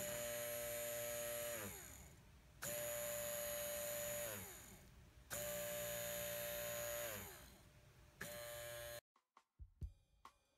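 Small 12-volt DC motor of a Piranha 800 wakeboat ballast pump cartridge, freshly cleaned of corrosion and muck, switched on three times in short runs on a battery. Each run is a steady whine that winds down in pitch when the power comes off, followed by a brief fourth burst: the once-seized motor now spins freely. Faint drum beats of music start near the end.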